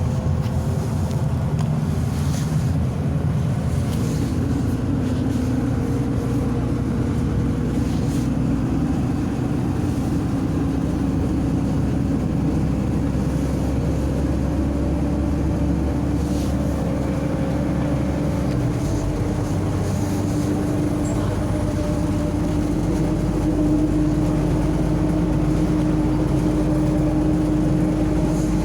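MAZ-105 articulated city bus heard from inside while driving: steady diesel engine hum and road noise, with an engine tone climbing slowly in pitch over the last third as the bus gathers speed.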